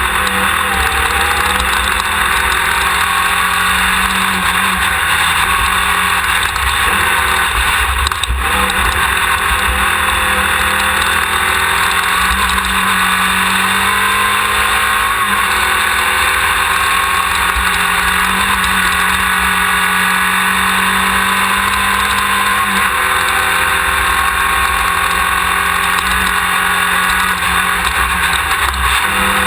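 Off-road race car's engine running hard and steady, its pitch drifting slightly as speed changes, over a continuous low rumble. One short knock comes about eight seconds in.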